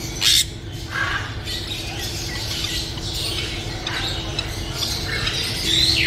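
Caged parrots squawking and chirping, with a loud sharp screech just after the start and a falling squawk near the end, over a steady low hum.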